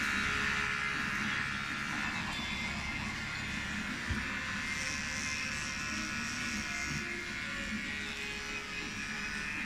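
Handheld hair dryer blowing steadily on a customer's hair.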